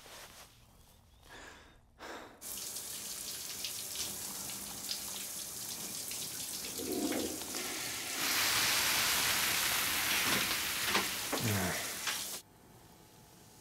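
Shower water running in a steady hiss. It starts about two seconds in, grows louder about eight seconds in, and cuts off suddenly near the end, with a few small knocks over it.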